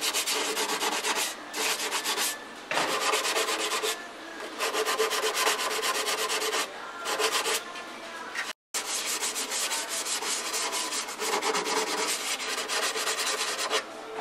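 Hand sanding with a sanding sponge on the primed and filled rear wheel-arch lip of a 2005 Ford Escape during rust repair: quick scratchy back-and-forth strokes in runs, broken by short pauses.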